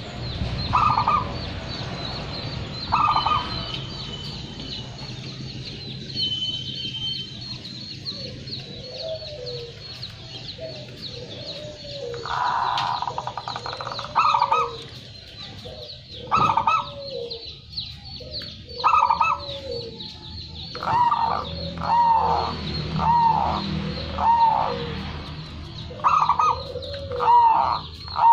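Zebra dove (perkutut) singing: short cooing notes in repeated phrases, coming about once a second and more regular in the second half. A steady high ticking runs underneath.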